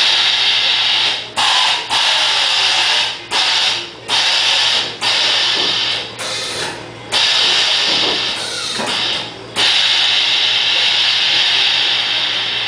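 Air valves of a 1971 Cushman Golfster's air-bag suspension hissing in a string of sharp on-off bursts of about a second each, the last one held for several seconds, as air is let into and out of the bags to raise and drop the cart.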